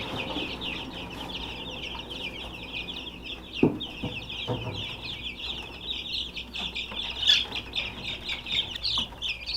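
A crowd of young Rhode Island Red chicks peeping without pause, many short downward-sliding high peeps overlapping into a dense chorus. A couple of brief knocks sound about a third of the way in and again past the middle.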